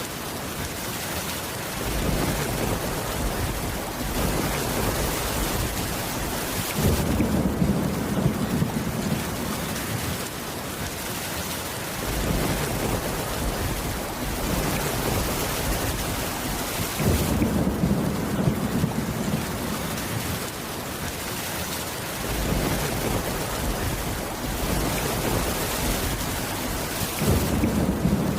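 Steady rain falling, with low thunder rumbling that swells and fades every few seconds.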